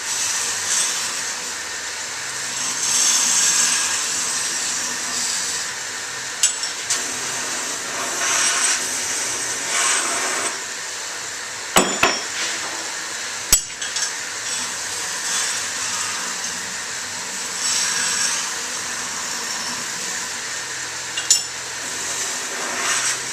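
Wilmont belt grinder running with a ceramic belt while steel knife blanks are pressed against its contact wheels in repeated passes, each pass a surge of grinding noise over the machine's steady hum. A few sharp metallic clinks come between passes.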